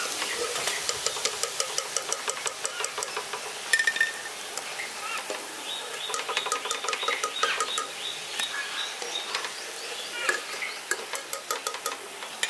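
Cabbage balls deep-frying in hot oil in a kadai: a fast crackle of small pops. Birds chirp repeatedly over it, most in the second half.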